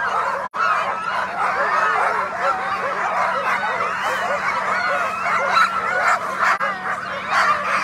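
A big chorus of Alaskan husky sled dogs barking and yelping all at once, many high rising-and-falling cries overlapping without a break: teams fired up and eager to run at a race start. The sound drops out for an instant about half a second in.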